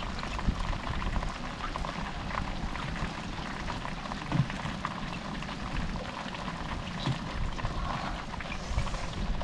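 Light rain pattering on the sea and the small outrigger boat, a steady patter of many small ticks. Now and then there are small splashes in the water-filled hold as a fish is handled in it.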